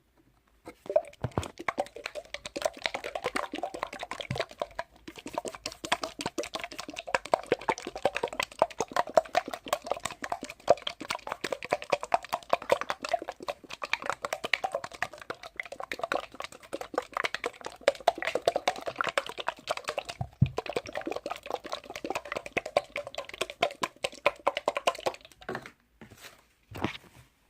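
Rapid, dense clicking and crackling close to the microphone, with a short pause about twenty seconds in. It stops a couple of seconds before the end, followed by one brief burst.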